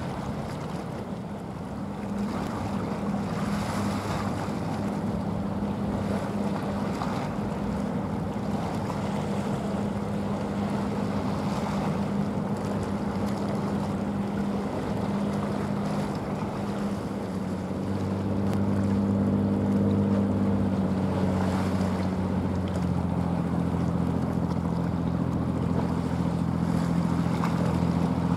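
Low, steady engine drone of a passing general cargo ship, growing louder about two-thirds of the way through, over a wash of waves and wind on the microphone.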